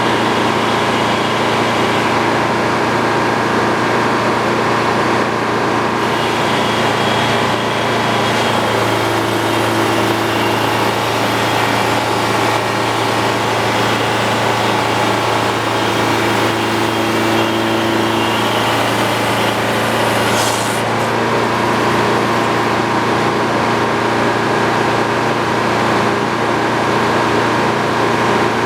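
Sawmill running steadily while a wooden beam is sawn into boards, the machine's drone holding an even level; a short hiss sounds about twenty seconds in.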